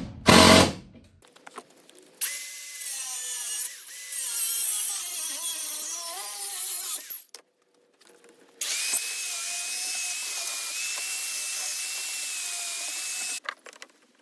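Power drill boring holes: a few short loud bursts at first, then two runs of several seconds each, split by a sudden break a bit past the middle. The second run is a steady whine.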